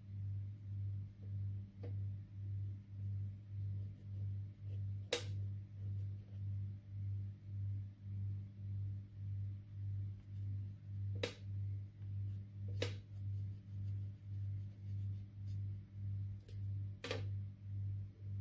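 A low droning hum that swells and fades about twice a second, with four short sharp clicks or pops scattered over it.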